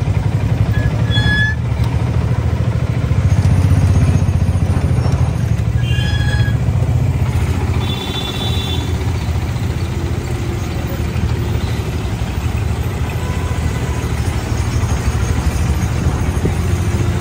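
Steady low rumble of a moving train, with short high-pitched tones about a second in, around six seconds and around eight seconds.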